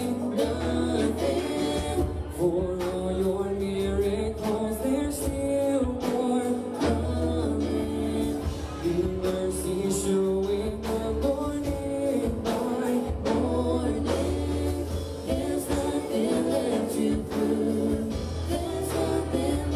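Gospel worship music: singers over a band with a steady bass line and drums.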